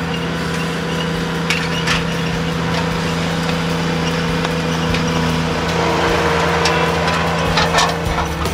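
A motor running steadily at one constant speed, with a few sharp clicks and knocks scattered through it.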